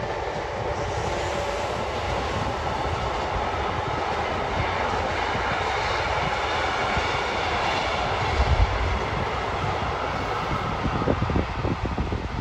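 Container freight train's wagons rolling past, a steady rumble of wheels on the rails. In the last second or so, low irregular thumps of wind on the microphone come in over it.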